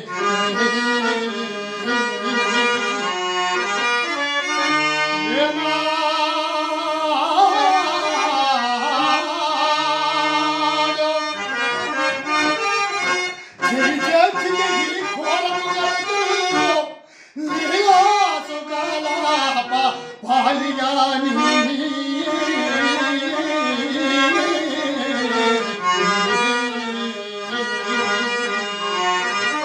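Harmonium playing the melody of a Telugu padyam verse in slow, drawn-out phrases, with a short break about seventeen seconds in.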